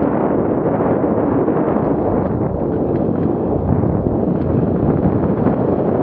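Mountain bike riding fast down a dirt forest singletrack: a steady, loud rush of wind buffeting the camera's microphone mixed with the rumble of the tyres rolling over the trail, with faint small rattles.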